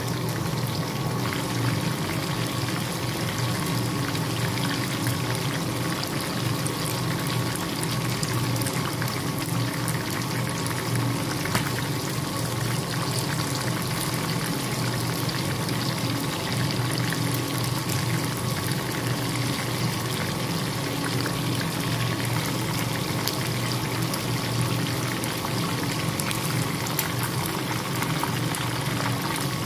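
Chicken wings deep-frying in hot oil in a pan, a steady sizzling and bubbling with small crackles throughout, over a steady low hum.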